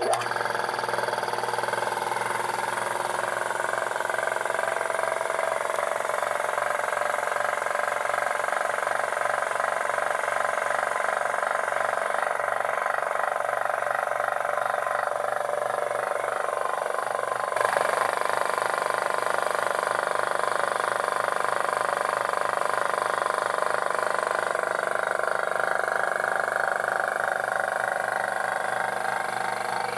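Restored vintage Craftsman air compressor running steadily, its motor and pump giving an even mechanical drone with a low hum. There is one brief knock a little past halfway.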